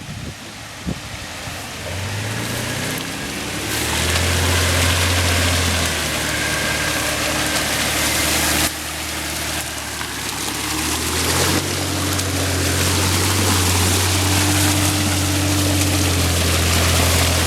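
An off-road SUV's engine revving hard under load while driving through mud, holding a high steady note that dips briefly about nine seconds in and climbs again, with a steady rushing noise over it.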